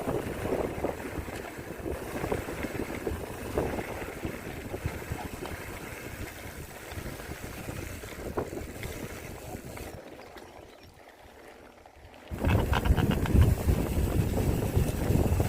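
Wind buffeting the microphone over the rumble and rattle of a mountain bike being ridden on a trail. It drops quieter about ten seconds in, then comes back louder about two seconds later.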